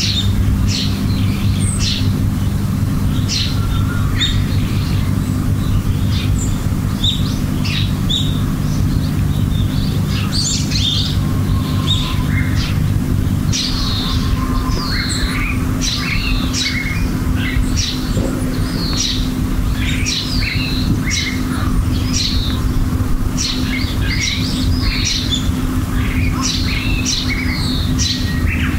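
Outdoor birdsong: many short chirps and calls from several birds, repeating throughout. Underneath runs a steady low drone, fuller in the first half.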